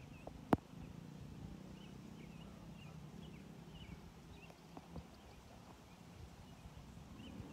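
Small birds chirping repeatedly over a low steady rumble, with one sharp click about half a second in and a couple of fainter knocks later.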